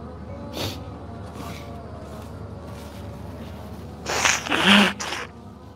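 A man breathing heavily close to the microphone. There is a short breath just after the start, then two loud rushing breaths about four seconds in, the second with a brief low voiced catch.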